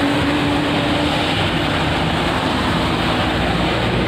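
Road traffic on the street beside the tree: a steady rushing noise with a vehicle's engine hum that fades out about a second in.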